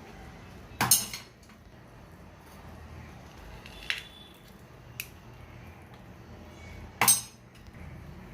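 Metal kitchen utensils clinking against a cooking pan: two loud clinks, about a second in and near the end, with a few lighter ticks between them.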